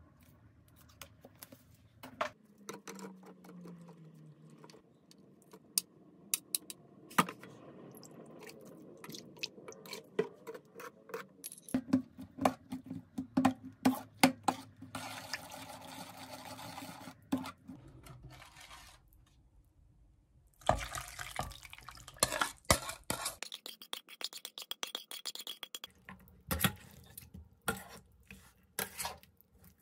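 A metal spoon stirring a soy-sauce marinade with sliced scallions in a plastic mixing bowl, then mixing rib meat in a stainless steel bowl, with repeated sharp clinks and scrapes and the slosh of liquid.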